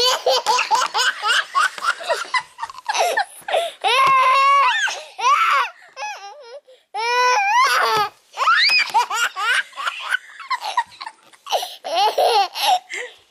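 A two-year-old toddler laughing in repeated high-pitched bursts, with short breaths between.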